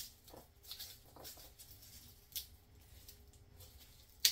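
Papery garlic skins crackling and rustling as cloves are broken off a head of garlic by hand, with a few sharp clicks, the loudest one near the end.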